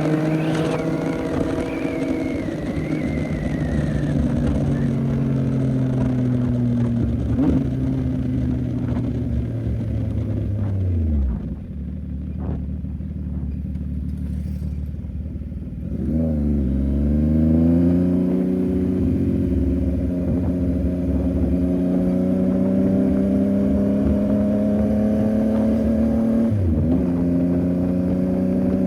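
CFMOTO 675NK's inline three-cylinder engine on the move. Its note falls steadily as the bike slows and drops to a low rumble; about halfway through it rises sharply as the bike pulls away, then climbs slowly, with a brief dip in pitch near the end.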